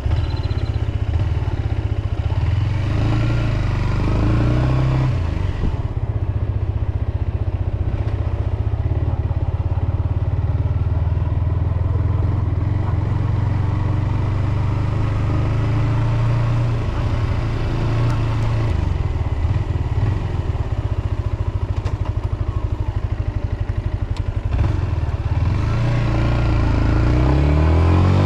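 Yamaha XSR125's single-cylinder engine running steadily at low revs as the bike rolls along, rising in pitch and loudness near the end as it accelerates.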